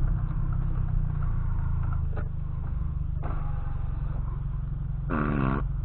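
Vehicle engine and road noise heard from inside a car, a steady low hum, with a couple of sharp clicks partway through and a brief pitched sound near the end.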